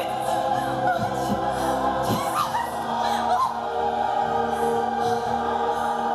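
Choral music: sustained chords with voices singing over them.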